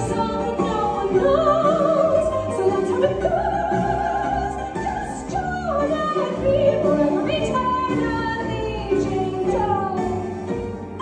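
Musical theatre ballad: an operatic-style voice sings long, slow held notes with vibrato over sustained accompaniment.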